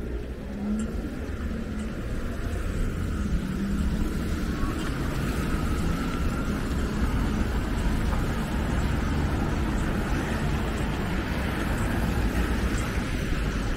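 Steady street traffic noise: city buses and cars running along the road, a continuous low rumble with faint engine hum.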